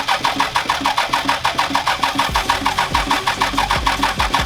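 6.7 Cummins inline-six diesel turned over by its starter, an even rapid chug of about nine or ten pulses a second. It cranks without firing, a no-start being traced by plugging off one injector line at a time.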